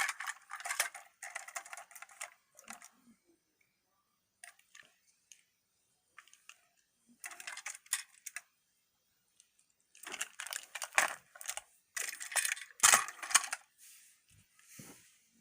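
Plastic toy train engines being handled and set against each other, in bursts of light clicking and clattering. The busiest and loudest stretch comes about ten to fourteen seconds in.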